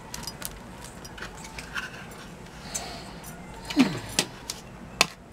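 Paper and thin card being handled and smoothed on a craft mat: soft rustling with a few sharp taps and clicks, the loudest about four and five seconds in.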